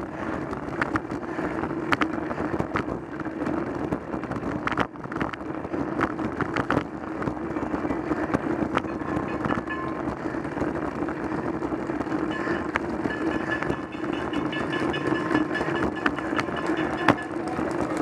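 Road bicycle rolling on tarmac, heard from a camera mounted on the bike: steady tyre and wind noise with a constant hum, broken by frequent short clicks and rattles as the mount jolts over the road surface.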